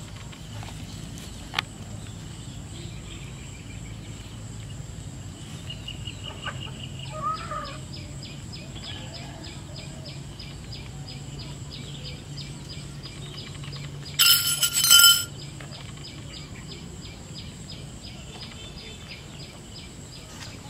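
Outdoor rural ambience with a steady low hum and a faint rapid ticking, broken about two-thirds of the way through by a loud chicken call lasting about a second.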